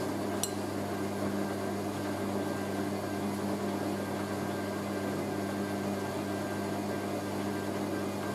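Hoover A3060 Electronic 1100 washing machine's motor running steadily with a low, even hum as the drum spins a load of towels. Two short sharp clicks come right at the start.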